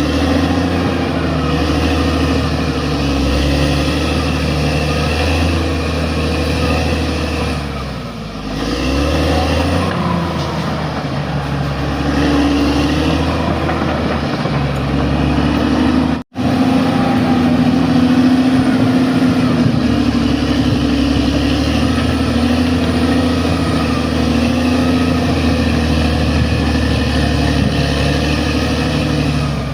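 Bulldozer's diesel engine running hard, its pitch sagging and recovering around 8 seconds in as it takes on load. The sound cuts out for an instant just past halfway.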